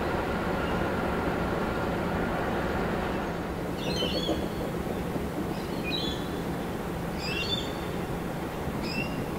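Diesel locomotives 4702 and 4204 running with a steady low rumble and hum as they haul a passenger train slowly. Birds chirp in short bursts several times from about four seconds in.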